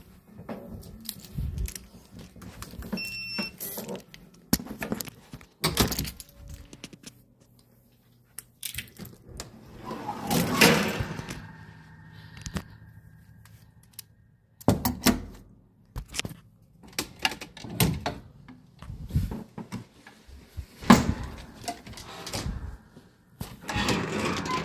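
Irregular knocks, clunks and rattles from a wooden folding attic ladder and other things being handled, with a longer rushing scrape about ten seconds in. A short high beep sounds about three seconds in.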